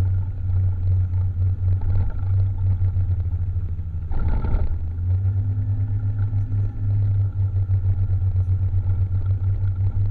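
Honda Vario 150 scooter's engine running and wind buffeting while riding, a low, throbbing drone. A brief louder burst of noise cuts in about four seconds in.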